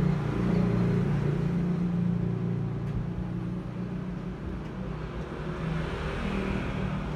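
A steady low droning hum with a rumble, holding at one pitch.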